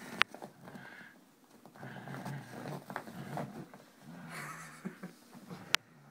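A jackabee (beagle–Jack Russell terrier mix) growling in low, broken rumbles while she holds a tug toy and is dragged across carpet. Two sharp clicks stand out, one just after the start and one near the end.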